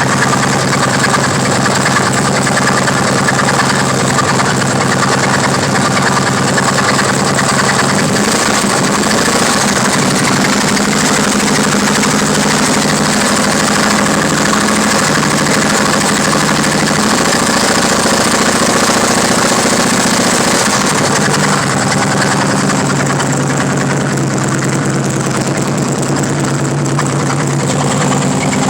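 Harley-Davidson V-twin motorcycle engine running at idle with a knock. For a stretch in the middle the engine note turns uneven, then it settles back to a steady idle.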